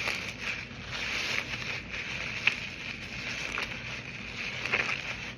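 Foamy cotton-and-Dove-soap slime being squeezed and fluffed by hand: a steady crackly hiss with small scattered pops.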